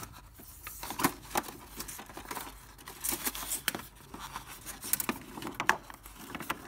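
A sheet of A4 paper rustling and tapping against the plastic edges of an inkjet printer's rear feed slot as it is pushed in by hand, with irregular soft clicks and scrapes.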